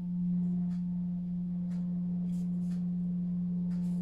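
A steady low hum, one constant tone with faint overtones, runs throughout. Over it come a few faint ticks and rustles of folded cardstock being pressed and handled.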